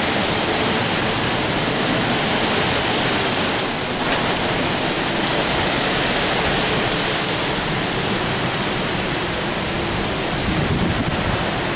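Heavy rain and strong wind of a severe thunderstorm, a loud steady hiss, with a deeper rumble building near the end.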